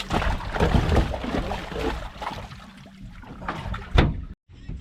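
Splashing water and knocking on a boat, loudest in the first two seconds, with one sharp knock about four seconds in.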